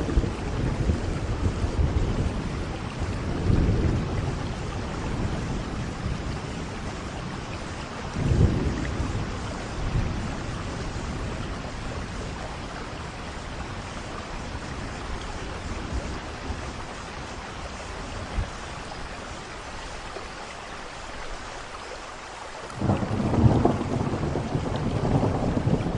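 Steady rain with rolling thunder: deep rumbles come and go, fading to a lull before a loud thunderclap rolls in near the end.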